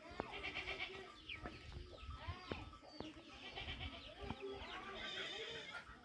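Chickens clucking with short, repeated calls. A high, fast-pulsing trill sounds twice in the background, once near the start and again after about four seconds.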